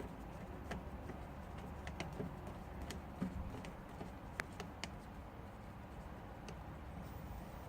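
Faint, irregular light clicks and ticks of small screws and a small screwdriver being handled against a laptop's screen frame.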